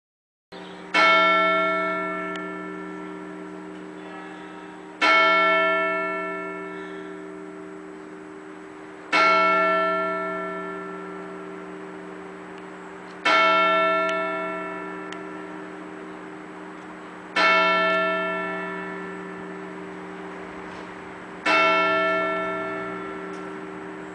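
A single church bell tolling slowly, six strokes about four seconds apart, each ringing out and fading before the next, with its low hum note carrying on between strokes.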